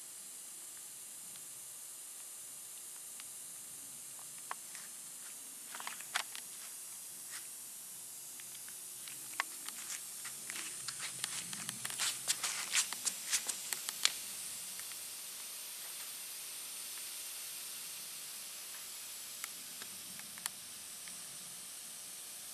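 Live steam model engine running with a steady hiss. A spell of sharp crackles and ticks comes through the middle, thickest about halfway through.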